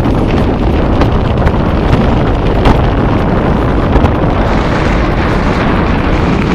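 Wind rushing over the camera's microphone during a tandem parachute descent under an open canopy: a loud, steady rush with a few sharp gusts.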